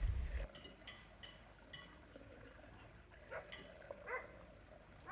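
Cutlery and glassware clinking lightly at a dining table, with several small ringing clinks in the first two seconds. About three and a half seconds in come two short, rising, high-pitched cries.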